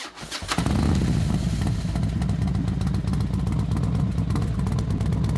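A few sharp clicks, then a motorcycle engine running loudly with an uneven, rapid beat.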